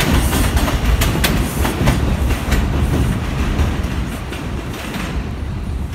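New York City subway 2 train running past on elevated track, its wheels clattering over the rail joints. The noise eases off over the last few seconds as the train pulls away.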